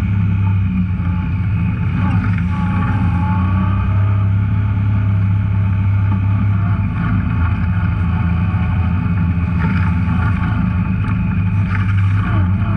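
Off-road vehicle's engine running steadily while driving along a trail, a constant low drone with a few faint rattles near the end.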